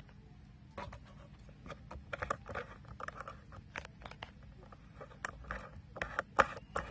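Faint, irregular handling noise: scattered light clicks, taps and rustles, with a few sharper taps near the end.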